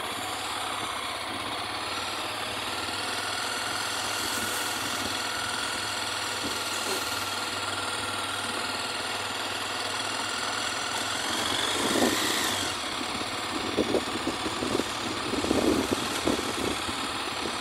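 Honda CB Twister's single-cylinder engine running at low speed on a rough dirt road. About twelve seconds in it picks up as the bike speeds up, and near the end short knocks come through, likely from bumps in the road.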